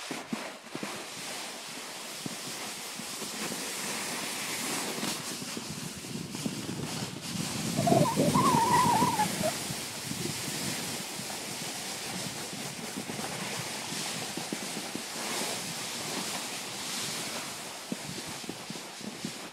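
Steady rushing of wind over the microphone together with the scrape of sliding over packed snow while moving downhill. About eight seconds in, a brief louder sound with a wavering pitch lasts about a second and a half.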